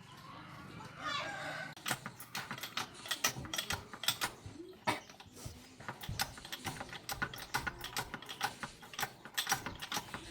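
A fast, irregular run of sharp metallic clicks and taps from hand-tool work on the tractor, starting about two seconds in.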